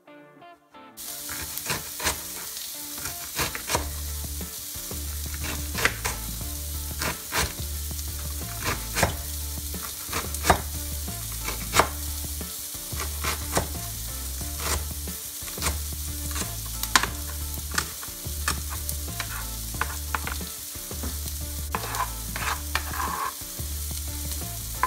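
Food sizzling steadily in hot oil in a frying pan, with frequent sharp clicks and scrapes of a utensil stirring it.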